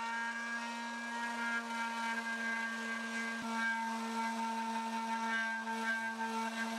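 Electric power sander running steadily on wood, its motor giving a constant, even whine.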